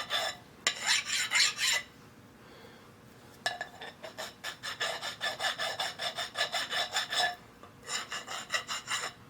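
Hand file rasping on a metal part in quick, short strokes. It comes in three bursts, the longest in the middle, with a quiet pause about two seconds in and a brief one near the end.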